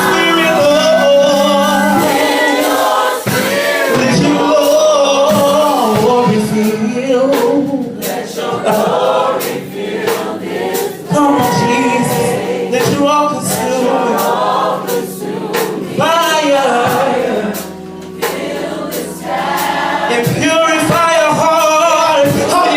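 Gospel choir singing with a male soloist over instrumental accompaniment, the voices held with vibrato over a steady low sustained note.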